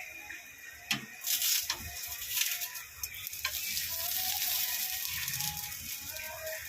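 Food sizzling in a hot pan, starting just after a click about a second in and going on steadily.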